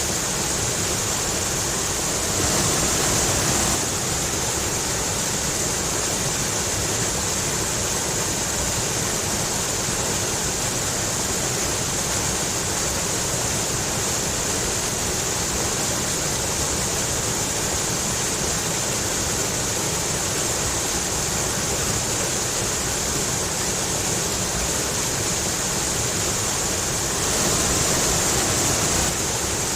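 Rushing stream splashing over rocks: a steady, full water rush with a bright hiss, swelling a little twice, about three seconds in and near the end.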